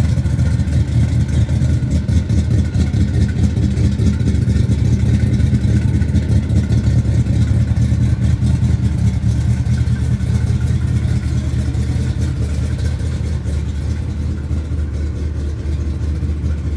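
1964 Chevrolet pickup's engine idling with a steady, loud, low rumble, a little quieter near the end.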